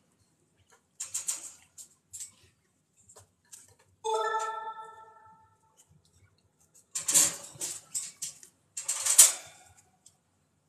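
Baby chinchilla scrabbling in the dust of a metal dust-bath tray: short scratchy rustles, a loud cluster of them in the second half and the loudest near the end. About four seconds in, the metal tray is knocked once and rings, dying away over a second or so.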